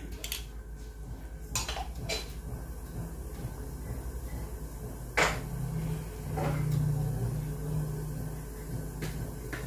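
Scattered clinks and knocks of kitchen utensils and containers, about six spaced over several seconds. A low hum swells for a couple of seconds past the middle.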